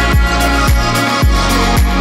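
Electronic background music with a steady beat: a deep kick drum about twice a second under held bass and synth notes.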